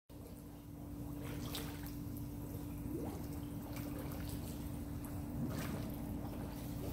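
Pool water lapping and trickling as a scuba diver swims just under the surface, with the diver's exhaled bubbles breaking the surface twice, about four seconds apart, over a steady low hum.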